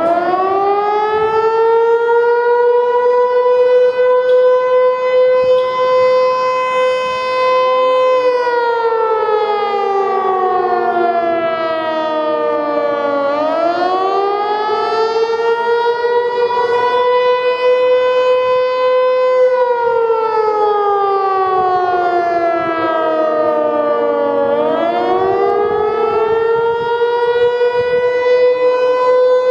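American Signal Corporation T-121 electromechanical outdoor warning siren wailing. It holds a high pitch for several seconds, slides down over about five seconds and winds back up, twice, with a stack of overtones above the main tone.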